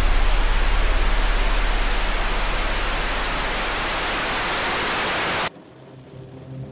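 A steady hiss of noise over a low pulsing hum, slowly fading and then cut off abruptly about five and a half seconds in. Just after, a low sustained ambient music drone begins.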